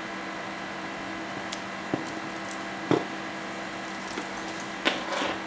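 Handling noise of a computer power supply's cable bundle and plastic connectors being moved in the hands, with three brief knocks about two, three and five seconds in, over a steady hum.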